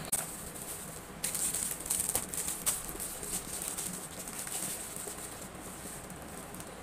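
Packaging being handled while an order is packed: uneven rustling and crinkling with a few sharper crackles and light clicks, louder in the first three seconds and lighter after.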